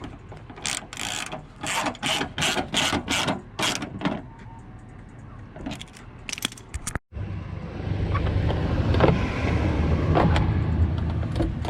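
A quick run of about a dozen sharp mechanical clicks, like a hand ratchet being worked. After an abrupt cut, a car engine runs steadily with a low rumble.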